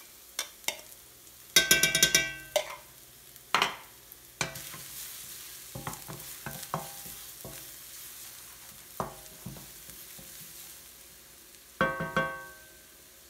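Minced garlic and chilies frying in oil in a stainless steel wok: a light sizzle sets in about four seconds in. Over it, a spoon clinks against the bowl and wok and a wooden spatula scrapes and knocks the pan, with two bursts of ringing clanks, about two seconds in and near the end.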